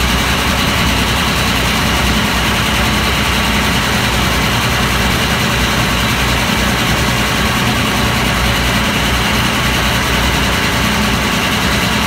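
PTS-M amphibious transporter's diesel engine running steadily at a constant pitch while the vehicle is under way on water, heard from its open deck.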